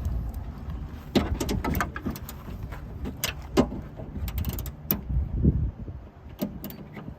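Irregular clicks, taps and knocks of hands and tools working the lock actuator and linkage rods inside a car door, with a few duller low thumps among them.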